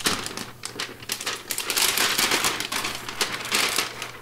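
Clear plastic wrapping crinkling and crackling as a laptop is slid out of it, a dense run of crackles that fades near the end.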